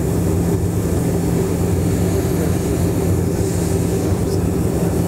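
Cabin noise of a BAe 146 airliner's four Lycoming ALF 502 turbofans running at low taxi power as it rolls slowly onto the runway: a steady hum with constant low tones.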